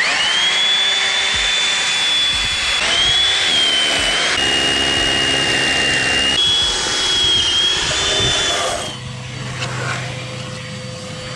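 SDS hammer drill with a 12 mm bit drilling pilot holes into a concrete footing: a loud, high whine over the hammering rattle, its pitch stepping a few times. The drilling stops about nine seconds in, leaving a fainter, lower hum.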